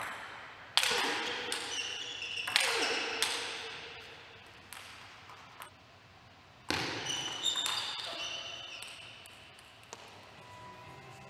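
Table tennis ball being played in rallies: sharp clicks as it is struck by the bats and bounces on the table, each hit ringing on in a large hall. There are two short bursts of play with a lull between them.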